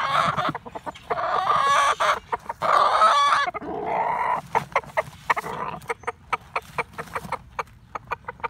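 A rooster's nest call: several drawn-out, wavering calls in the first three and a half seconds, then a steady run of short clucks at about three a second, as he coaxes a hen into a nest spot.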